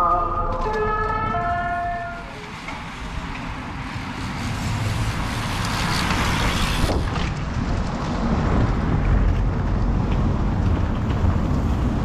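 A race lead car's multi-tone horn sounds for about the first two seconds and stops. Then a group of racing bicycles rushes past close by, the swish of tyres and wind swelling to a peak about six seconds in. A following car's engine runs low through the rest.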